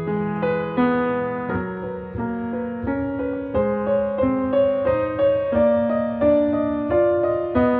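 Soft piano music, single notes played one after another at a slow, even pace over sustained lower notes.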